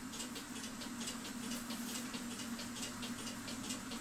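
Thin copper metal leaf crinkling and tearing in the fingers, a faint irregular crackle of several small ticks a second, over a steady low hum.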